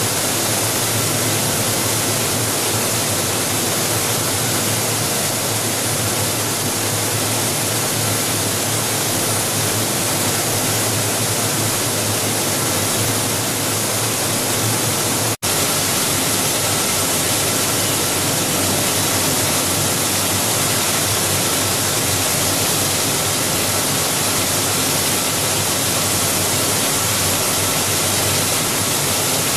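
Steady, even noise from a running plastic recycling and pelletizing line, a conveyor-fed shredder and extruder with a die-face pelletizer. It cuts out for an instant about halfway through.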